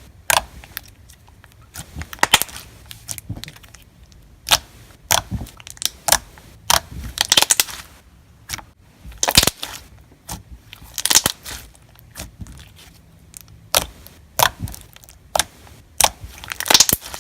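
Thick, glossy slime studded with jumbo foam beads being squished and pressed by hand: irregular crackling and popping in short clusters, some of them sharp and loud.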